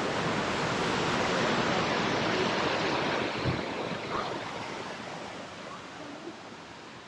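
Rushing whitewater of the Ausable River in its rock chasm, a steady rush that fades gradually over the last few seconds.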